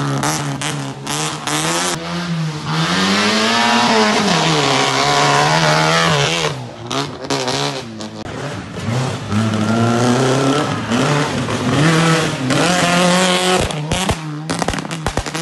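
Rally hatchback engines revving hard through a dirt-road bend, the pitch climbing and dropping with throttle lifts and gear changes, over the noise of tyres scrabbling on the loose surface. One car passes first; after a brief lull in the middle, a second car comes through.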